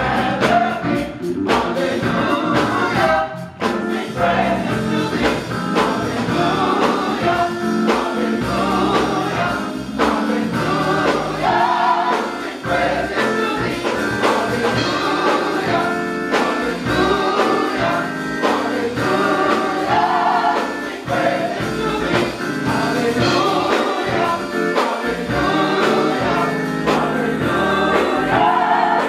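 Gospel choir of men and women singing a praise song together over instrumental accompaniment with a moving bass line.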